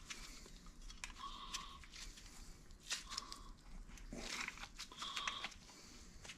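New pull cord on the recoil starter of a Wacker Neuson BS60-4S rammer being drawn out and let rewind, about every two seconds: a short faint whir each time, with light clicks in between.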